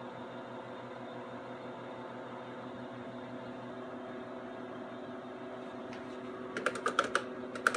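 Steady hum of a Radio Shack TRS-80 Model II computer running. Near the end comes a quick run of sharp clicks from keys being typed on its keyboard, entering a username at the login prompt.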